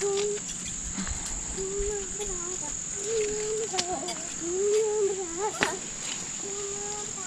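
Steady, high-pitched chorus of summer insects buzzing without a break, with quiet voices now and then.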